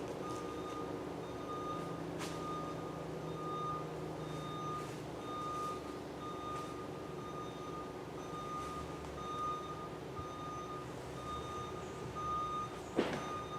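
A steady high warning tone beeping in short, even pulses, with a low hum underneath. Near the end comes one brief, sharp, falling swish.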